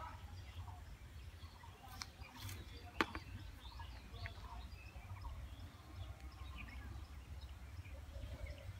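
Rural outdoor ambience: a low steady rumble with scattered faint bird chirps, and a single sharp click about three seconds in.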